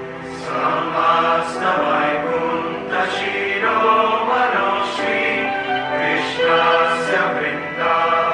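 A choir singing a slow devotional song in phrases, over a sustained musical accompaniment.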